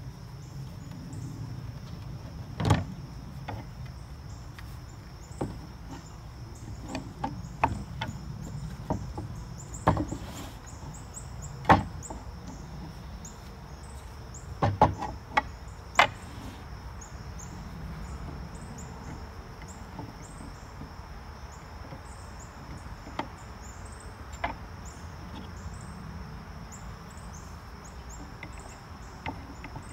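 Wooden stool parts knocking and clattering as they are handled and fitted together on a plastic folding table: scattered sharp wooden knocks, a few at a time, with a cluster about two-thirds of the way through.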